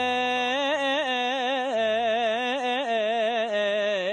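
A man's voice singing a Kurdish religious qasida (kaside) without words: one long melismatic line, wavering in quick ornamental turns, that steps down in pitch about halfway through.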